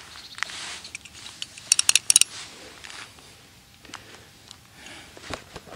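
Light knocks of footsteps on lake ice with scattered clicks, and a quick run of sharp metallic clinks about two seconds in.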